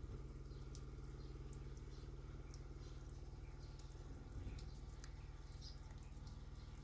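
Faint, scattered chirps of small birds over a steady low hum.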